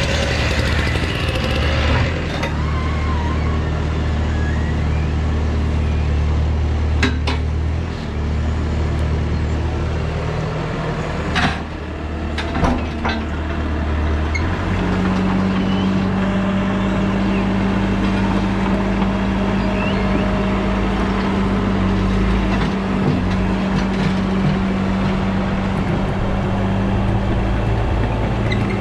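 Bobcat T595 compact track loader's diesel engine running under load while its pallet forks lift a broken concrete sidewalk slab, with a few sharp knocks of concrete in the first half. The engine note shifts about halfway through as the loader carries the slab away.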